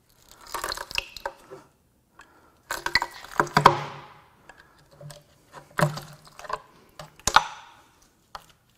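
A pry bar levering the lower timing cover off a VW EA888 2.0 TSI engine: a run of clicks, scrapes and knocks as the cover is worked loose and pulled away. The loudest group comes a little past the middle.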